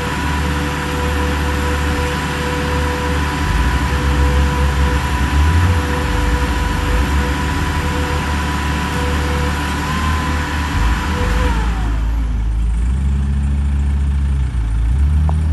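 Engines of a portable car crusher's power unit and a wheel loader running steadily as the crusher lid lifts off a flattened car, with a steady high whine over the engine noise. About twelve seconds in the whine slides down in pitch and the hiss above it dies away, leaving the low engine rumble.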